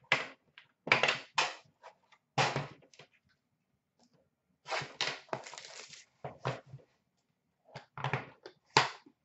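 Hands unpacking a box of hockey cards: a string of short knocks, clacks and scrapes as packaging and card holders are handled and set down on the counter, with a pause around the middle.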